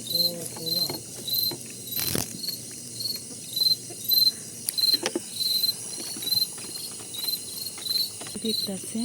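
A cricket chirping steadily, about two short chirps a second. A single sharp click comes about two seconds in.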